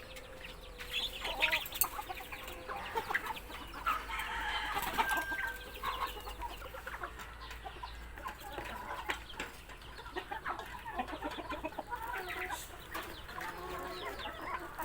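Chickens clucking, with many short scattered clicks and calls.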